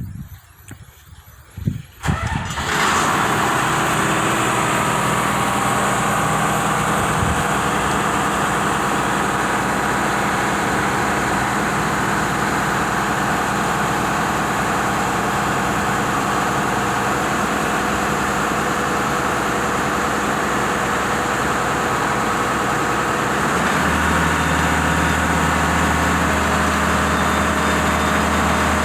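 Cummins diesel engine on a Badger 670 mobile excavator cranking and starting about two seconds in, then running steadily. About twenty seconds later a deeper, slightly louder note joins in.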